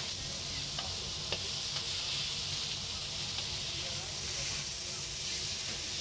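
Skewered squid sizzling on a hot flat-top iron griddle: a steady hiss, with a few light clicks.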